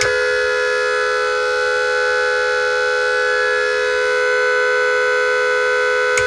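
Magic 18 electronic twin car horn, a pair of speaker-type horns driven by a tone module, sounding one loud, steady, unbroken horn note. After a single flick of the switch the module keeps the horn going and it does not stop by itself. A single click near the end.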